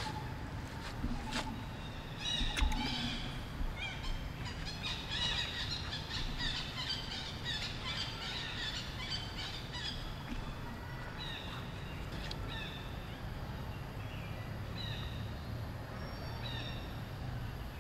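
Many short, high-pitched animal chirps and calls, thick and overlapping for several seconds and then coming as scattered single calls, over a steady low rumble. A single thump about two and a half seconds in.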